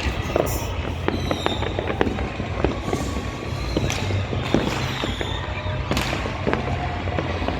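New Year fireworks going off: a dense, irregular scatter of sharp bangs and crackles, some near and some far, over a steady low rumble.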